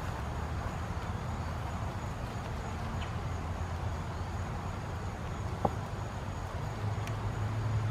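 A low, steady engine hum that grows louder and a little higher near the end, with one sharp click about two-thirds of the way through.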